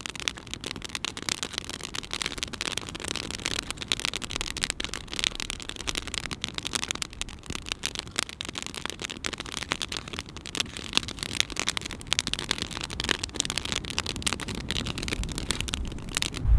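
Open cooking fire crackling, a dense run of small pops and ticks.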